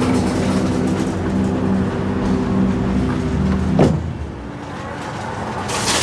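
Street traffic: a motor vehicle's engine running with a steady low hum, which rises briefly in pitch and cuts off a little under four seconds in, followed by a hiss near the end.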